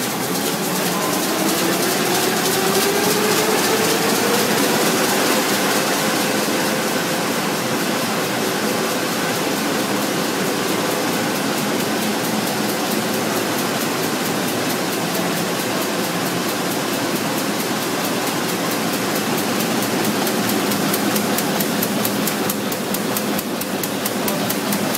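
2006 Komori Lithrone LS 529+C five-colour sheetfed offset press with coater running at speed: a dense, steady mechanical clatter with a fast, even beat. A whine rises in pitch over the first few seconds, then holds steady.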